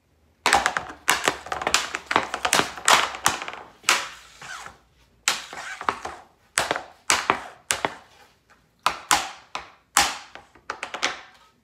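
Hockey stick blade and rubber puck clacking against a hard board as a puck is stickhandled back and forth: a quick, uneven run of sharp clacks and taps with short pauses between groups.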